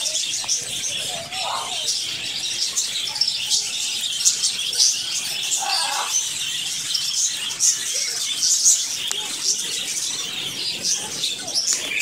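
A flock of budgerigars chattering: a dense, unbroken twittering of many overlapping short, high chirps.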